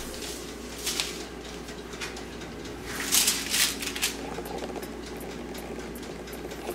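Aluminium foil rustling and a metal spoon scraping as dry spice rub is spread by hand over a slab of pork ribs, in short bursts with the loudest about three seconds in. A steady low hum runs underneath.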